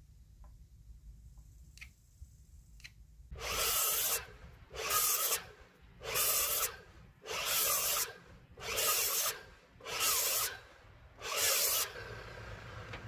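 Seven rasping strokes of a hand tool on a pine or spruce timber beam, evenly spaced a little over a second apart. There is no power-saw motor running.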